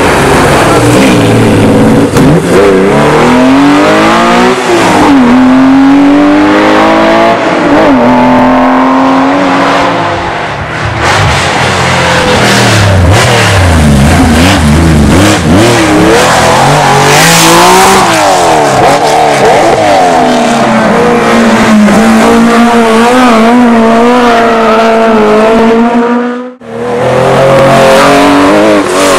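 Porsche 911 rally cars' flat-six engines revving hard, pitch climbing and dropping through gear changes as the cars accelerate out of hairpins and pass one after another. There is a brief cut-out in the sound near the end.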